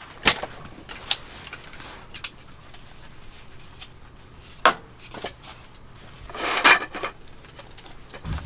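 Scattered sharp knocks and clicks of objects being set down and handled, with a longer rustling scrape about two-thirds of the way through and a dull thump near the end.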